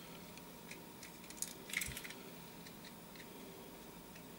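Faint clicks and light rattles of small parts being handled: tin clock hands being fitted onto the spindle of a plastic quartz clock movement, with a quick cluster of sharper clicks about a second and a half in.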